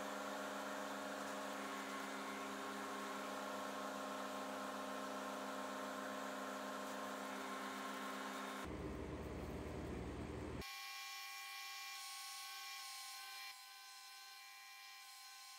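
A small electric motor humming steadily with several fixed tones. About nine seconds in the sound changes abruptly; from about eleven seconds a quieter, thinner hum runs on and drops again near the end.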